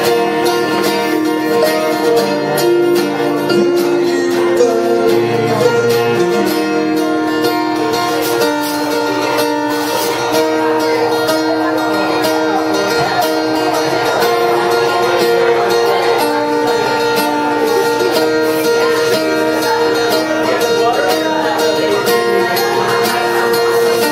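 Live instrumental passage: a strummed acoustic guitar and a Yamaha electric keyboard playing together with steady, held chords.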